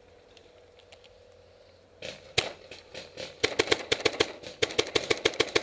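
Paintball marker firing: a single shot about two seconds in, then two rapid strings of shots at about seven a second with a short break between.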